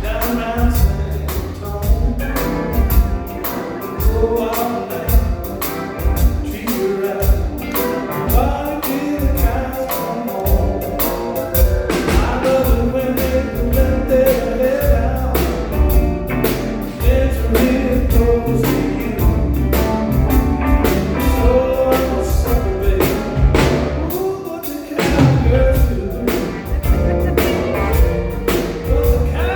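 Band music with a singer over drums and bass.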